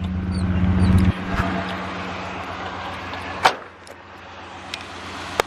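A car engine idling with a steady low hum that stops abruptly about a second in. It is followed by a car door shutting with a loud thump and, near the end, a sharp click.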